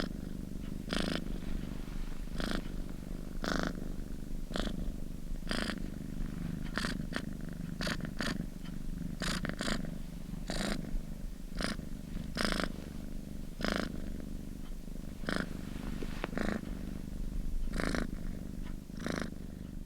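Domestic cat purring steadily at close range, a continuous low rumble with a short breathy rasp about once a second as it breathes in and out.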